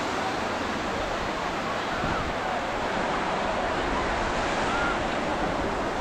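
Ocean surf breaking and washing up on a sandy beach: a steady, even rush of waves.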